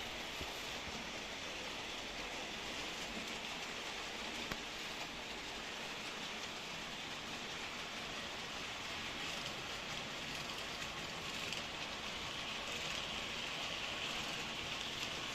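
H0-scale model trains running on the layout: a steady rolling hiss of small wheels on the track, swelling slightly now and then.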